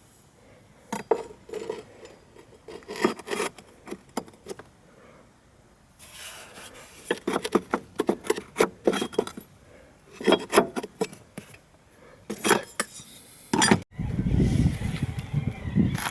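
Scattered clicks, knocks and scraping of a car battery and its fittings being handled and set into the battery tray, with a denser run of knocks in the middle. Just before the end, a low rumbling noise suddenly takes over.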